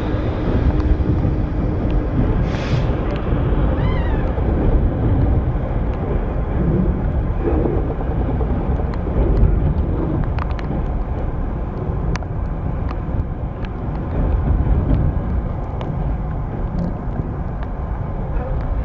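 Freight train running through close by, hauled by a Class 66 diesel locomotive: the locomotive's engine note fades in the first couple of seconds, then a long rake of loaded container wagons rolls past with a steady heavy rumble and scattered clicks and clanks from the wheels and couplings.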